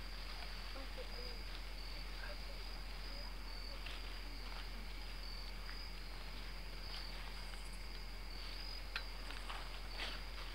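Crickets chirping steadily in the night, with a few faint clicks and pops scattered through, the sharpest about nine seconds in.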